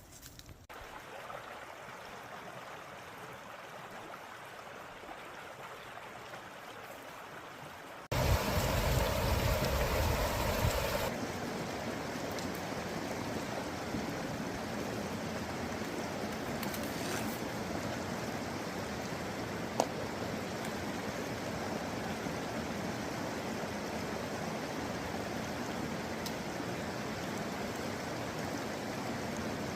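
Creek water flowing, a steady rushing noise. It jumps suddenly louder about eight seconds in, with a low rumble for a few seconds, then settles to a steady level; one sharp click near the middle.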